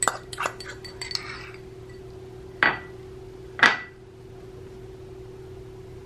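Metal fork tapping and clinking against a plate while spreading butter over fish: several light taps in the first second and a half, then two sharper, ringing clinks about a second apart.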